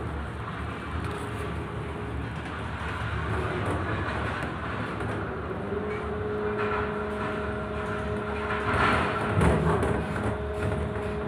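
Quayside crane machinery running while lifting a steel coil: a steady low rumble, joined about six seconds in by a steady whine, with a louder swell of noise around nine seconds in.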